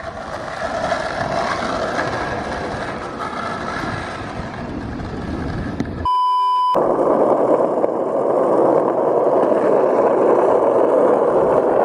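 Skateboard wheels rolling on asphalt. About six seconds in, the rolling gives way to a short, steady test-tone beep with the colour-bar glitch, then comes back as a louder rolling rumble over pavement.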